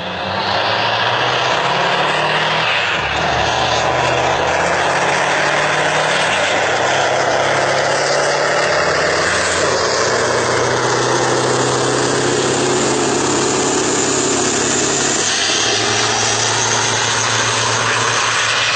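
Diesel engines of two loaded Scania and Volvo semi-trucks at full throttle in a drag race, the sound jumping up about half a second in as they launch and staying loud as they accelerate away. The engine note steps in pitch a few times as they shift up through the gears.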